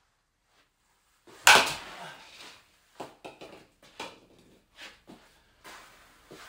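Easton Salvo slowpitch softball bat hitting a ball off a tee: one loud sharp crack with a short ring about a second and a half in, followed by several light clicks and knocks as balls are handled.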